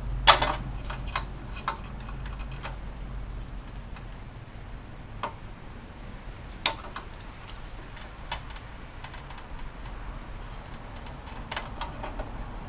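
Scattered clicks and taps of small metal parts and hand tools being handled while hoses are worked off a MIG welder gun fitting, the loudest just after the start. A steady low hum runs underneath.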